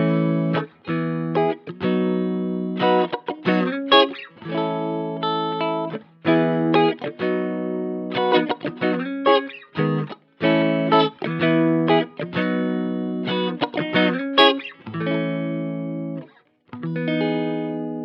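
Eagletone AL-630G guitar played in short, choppy strummed chords with brief gaps between them. Near the end one chord is left to ring out and fade.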